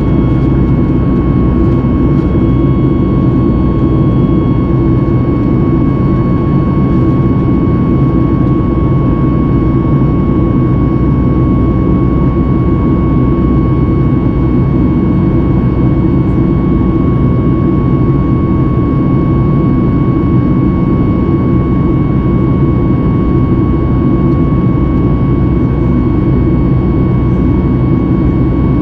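Cabin noise of a Boeing 737 MAX 8 climbing out, heard inside the cabin: the steady drone of its CFM LEAP-1B engines at climb power, with a steady high whine over a deep rumble.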